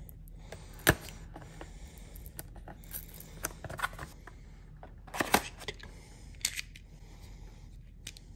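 A small cardboard retail box being opened and handled: scattered sharp clicks and taps with light rustling of the card and packaging, including a click about a second in and a quick cluster of clicks about five seconds in.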